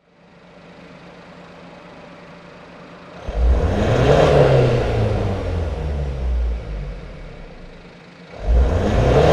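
Mazda CX-5 (KF2P) 2.2-litre turbodiesel breathing through a BLITZ NUR-SPEC VSR stainless aftermarket exhaust, idling and then free-revved while standing still. About three seconds in, the revs climb quickly to nearly 4,000 rpm and then sink back toward idle over several seconds. A second rev starts sharply near the end.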